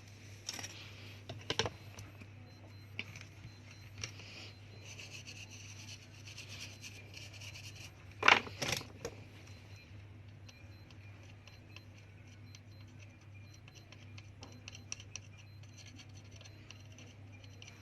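Light scratching, rubbing and scattered clicks of small tools working on a phone's circuit board, with one louder sharp clack about eight seconds in, over a steady low hum.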